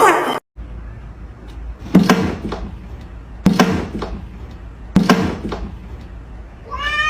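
Three sharp knocks about a second and a half apart over a low steady hum, then a domestic cat starts to meow near the end. Background music cuts off just before the knocks.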